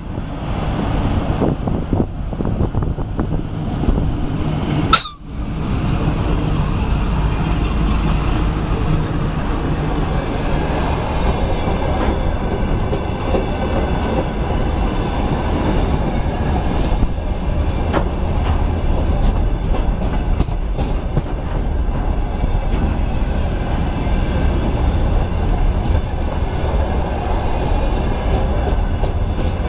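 A VL10U electric locomotive hauling a freight train passes close by, with one sharp, loud crack about five seconds in. A long string of open freight wagons then rolls past in a steady rumble, with wheel clatter over the rail joints.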